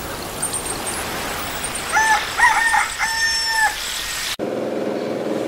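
A rooster crowing once, a cock-a-doodle-doo with a few short notes and a long held final note, used as a wake-up-in-the-morning sound effect over a steady hiss. The sound cuts off abruptly near the end, replaced by a different steady background.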